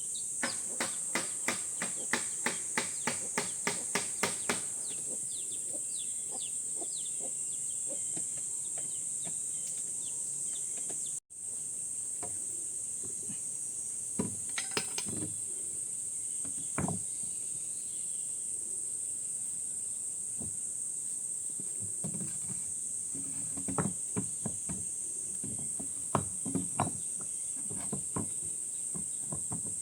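Steady high-pitched drone of insects. Over it come a run of even knocks, about three a second, for the first four seconds or so, then a few scattered knocks later.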